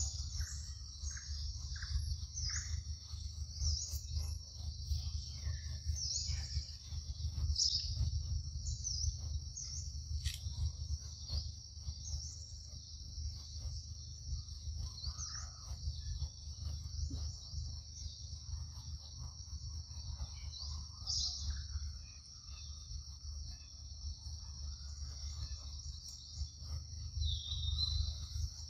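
Steady high-pitched insect chorus of crickets or cicadas in the forest, with short bird chirps scattered through it, over a constant low rumble.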